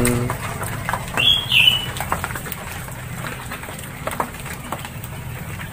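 A caged lovebird flaps its wings and gives two short, high chirps about a second in, with scattered light clicks over a low steady hum.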